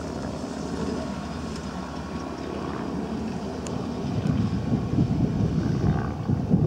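Case CVX 130 tractor engine running steadily while it pulls a Claas Liner 2900 rotary rake through cut grass. The sound grows louder over the last two or three seconds.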